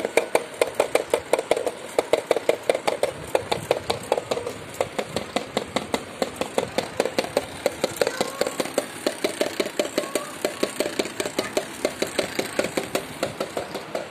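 Homemade drum machine: a long perforated metal construction-kit strip repeatedly beating on a plastic bucket lid, a fast, even rhythm of several hollow taps a second.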